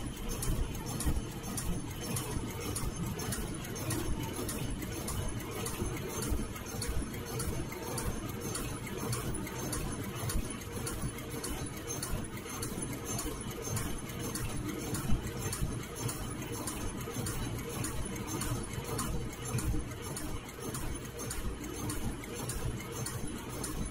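Automatic 3-ply flat face mask machine running at production speed, about 100 masks a minute: a steady mechanical clatter with a regular beat of ticks, about two a second.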